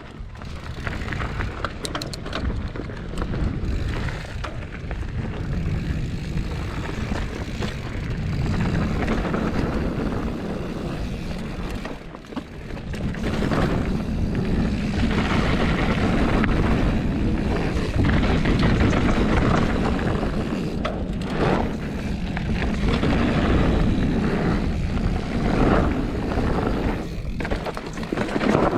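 Wind buffeting the microphone and tyres rumbling and rattling over a dirt trail during a fast mountain bike descent. The noise eases for a moment about twelve seconds in, then returns as loud as before.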